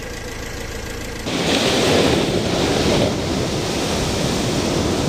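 Car engine idling steadily for about the first second, then the sound of surf breaking on a beach takes over as an even wash of noise.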